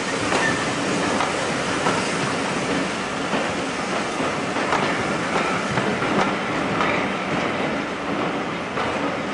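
Mark 1 passenger coaches of a steam-hauled train rolling past close by, a steady rumble with the wheels clicking over rail joints. Now and then come brief high squeals of wheels on the rail.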